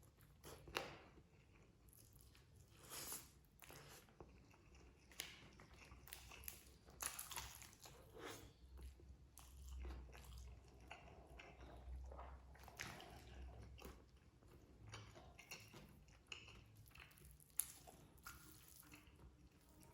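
A person eating close to the microphone: chewing and biting food, with many short, irregular crunches and mouth clicks. It is faint overall.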